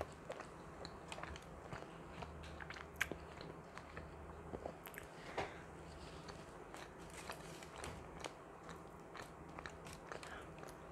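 Close-miked chewing of a bread sandwich: small wet mouth clicks and soft crunches scattered irregularly, the sharpest about three seconds in and again a couple of seconds later, over a faint steady low hum.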